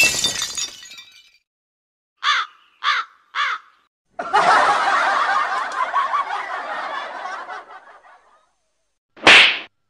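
Added comedy sound effects. A loud sudden noise at the start fades within a second; then come three short, evenly spaced caw-like calls, then about four seconds of laughter, and a short high squeal near the end.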